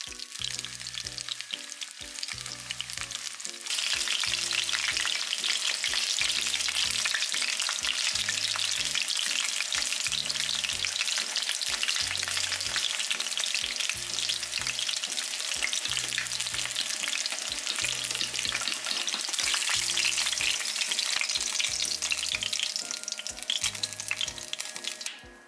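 Breaded chicken cutlets shallow-frying in hot oil in a pan: a steady, dense crackle and sizzle that steps up louder about four seconds in and cuts off just before the end. Soft background music plays underneath.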